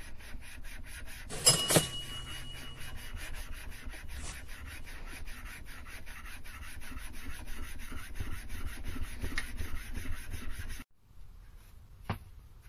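Mini lathe's steel cross slide being pushed back and forth by hand on its dovetail with grinding paste between the surfaces: a rhythmic metal-on-metal rubbing as the dovetail is lapped. A metallic clink rings briefly about a second and a half in, and the rubbing stops abruptly near the end.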